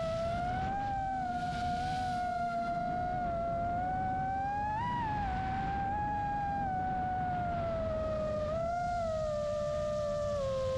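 Brushless motors of a 5-inch FPV quadcopter whining at a steady pitch that swells briefly with throttle about five seconds in and again near nine seconds, then sinks lower near the end. Stormy wind rumbles on the microphone underneath.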